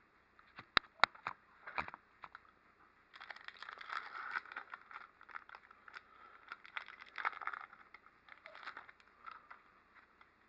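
Pokémon booster pack wrapper crinkling as it is torn open and the cards are slid out, with a few sharp snaps in the first two seconds.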